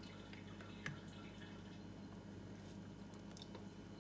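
Broth dripping faintly from a soup ladle back into a pot of pork bone broth, with a few small clicks, over a steady low hum.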